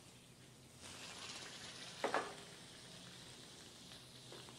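Butter melting and sizzling faintly in a stainless steel frying pan over a gas flame, with one sharp knock about two seconds in.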